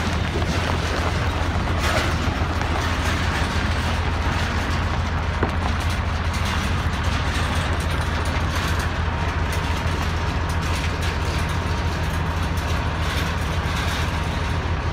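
Diesel truck engines running at low speed, a steady deep rumble, while a pickup towing a stock trailer passes close, with light rattling from the trailer.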